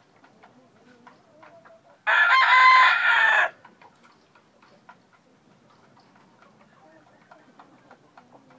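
Gamecock crowing once, a short crow about a second and a half long, starting about two seconds in.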